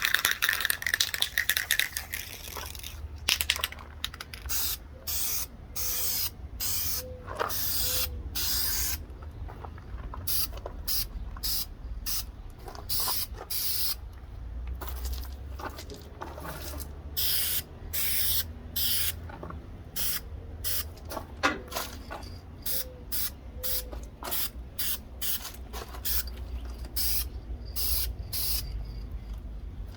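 Aerosol spray-paint can being sprayed in many short bursts, each a quick hiss with brief pauses between, laying down a second coat of paint on a small RC truck body shell.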